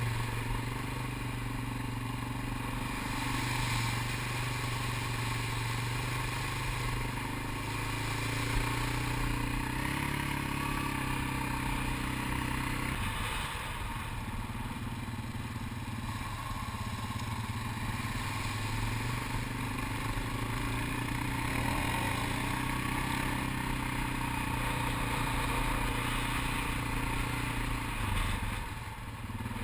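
Four-wheeler ATV engine running steadily under way, heard from the rider's own quad. Its pitch shifts about 10 and 13 seconds in as the speed changes, and it eases off near the end.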